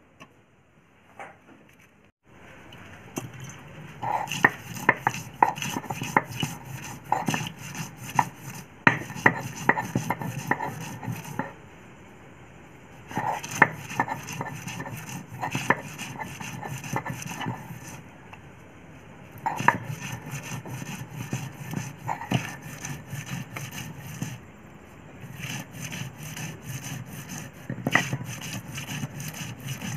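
Stone roller scraping back and forth on a flat grinding stone (sil-batta), crushing sliced onions into paste. It starts about two seconds in and goes in bouts of rhythmic rubbing strokes with sharp knocks of stone on stone, pausing a few times.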